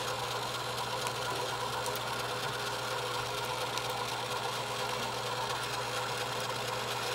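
Small electric egg-decorating spinner's motor running steadily with an even whirring hum as it turns an egg.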